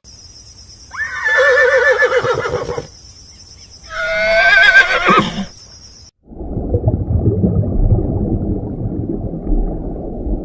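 Horse neighing twice, each whinny a wavering call under two seconds long, the second starting high and falling. From about six seconds in, a steady low noise follows.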